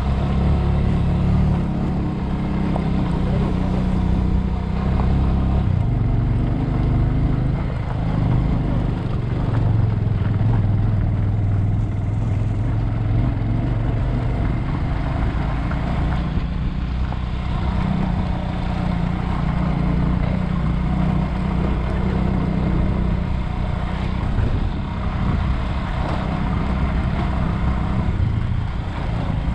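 Bajaj Avenger 220 motorcycle's single-cylinder engine running under way, its note rising and falling with the throttle as the bike climbs.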